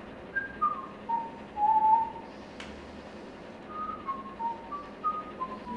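A person whistling a short tune in two falling phrases of single notes. The first phrase steps down to a longer, louder low note about two seconds in, and the second starts about four seconds in. There is one sharp click between the phrases.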